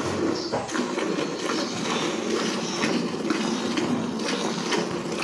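Cow being milked by hand: streams of milk squirting from the teats into a metal pail in a steady run of spurts.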